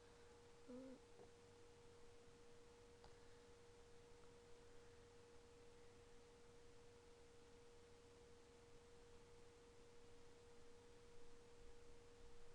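Near silence: room tone with a faint steady hum at one unchanging pitch.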